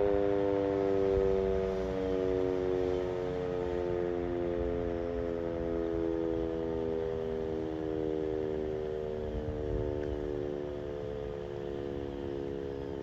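Sentry 10V outdoor warning siren winding down, a whine of several tones falling slowly in pitch, with a low rumble underneath.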